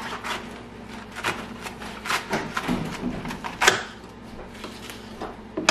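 Kitchen knife sawing through a raw half cabbage on a plastic cutting board: an irregular run of crisp crunches and snaps as the blade cuts through the tight leaves, several a second, with a few louder cracks.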